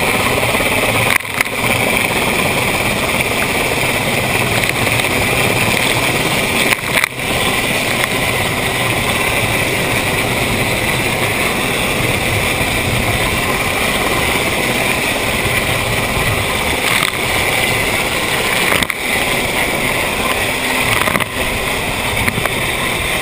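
D class inflatable lifeboat running at speed through a rough swell: a steady, loud blend of outboard engine, wind and rushing water. The level dips briefly a few times.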